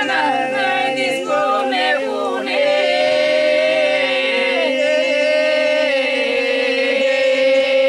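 Several voices singing unaccompanied over a steady, held lower note. After about two and a half seconds the melody settles into long held notes.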